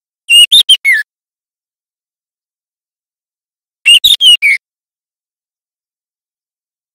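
Young male white-rumped shama in spotted juvenile plumage singing two short phrases of four quick notes each, about three and a half seconds apart: a juvenile still learning its song.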